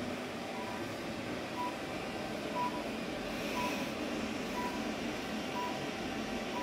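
Therapy laser unit beeping: a short, high electronic beep about once a second while the laser is emitting, over steady background noise.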